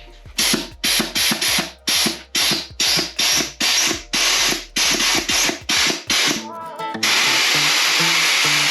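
Compressed-air blow gun fired in about a dozen short hissing blasts, then held open in a steady hiss from about seven seconds in. The air is being blown into a fluid passage in a 4L60E transmission case to force the last drum and piston loose.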